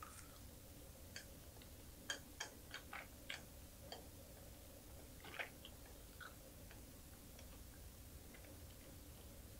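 Close-up chewing of small anchovies: a quick run of sharp, crisp clicks a second or so in, a few more over the next seconds, then only faint ticks over near silence.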